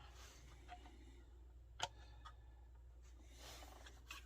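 Near silence with a low hum, broken by one sharp click about two seconds in and a few fainter taps: the plastic body of a small RC rock crawler being handled and fitted onto its chassis.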